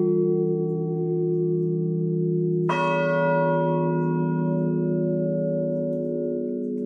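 Church bells tolling a funeral knell, each stroke struck singly by hand. The hum of an earlier stroke is still fading when a new clapper stroke lands about two and a half seconds in and rings on, slowly dying away.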